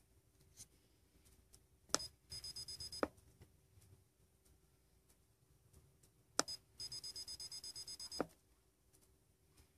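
RigExpert AA-54 antenna analyser being keyed by hand. A key click comes about two seconds in, then a quick run of high beeps at about ten a second, closed by another click. The same happens again from about six seconds in, with a longer run of beeps, as a frequency key is held to step the measuring frequency.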